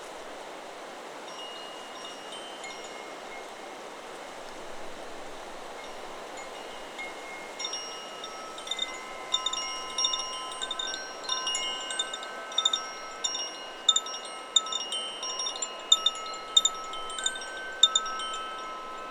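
Chakra Chimes 'Solar Plexus' wind chime ringing in the wind over a steady hiss of wind. A few faint tones sound at first, then from about halfway the chime is struck often, its ringing tones overlapping.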